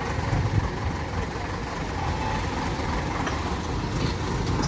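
Diesel engine of a loaded Tata truck running steadily at low speed as the truck drives slowly past close by.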